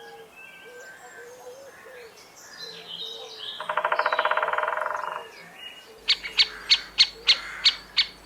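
Birds calling: light chirps and whistles, then a loud rapid trill for about a second and a half, and after a cut a run of sharp, evenly spaced calls, about three a second.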